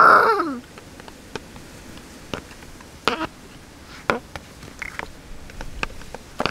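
A short high whinny, rising then falling, right at the start. Then scattered light clicks and taps from plastic toy horses and fence pieces being moved by hand.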